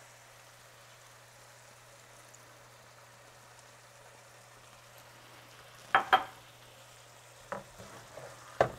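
Shrimp frying in a stainless steel skillet with a faint, steady sizzle. About six seconds in there are two sharp knocks of a utensil against the pan, and a few lighter knocks near the end as the food is stirred with a wooden spatula.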